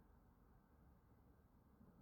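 Near silence: faint low room tone or hum.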